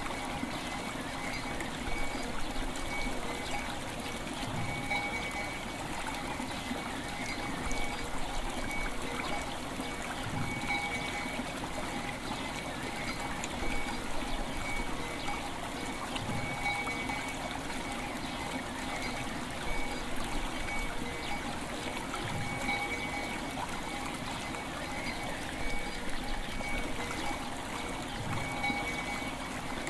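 River water flowing and trickling steadily, with a bell's long ringing tones sustained over it and a low pulse returning about every six seconds.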